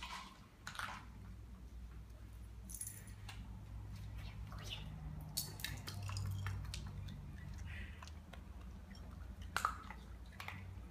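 Scattered light taps and clicks of small dogs moving about on a tile floor, one of them in dog boots, over a low steady hum.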